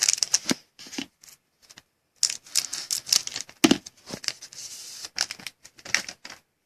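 Trading cards being handled and flipped through by hand: rapid clicks and rustles of card stock and wrapper, in several short flurries.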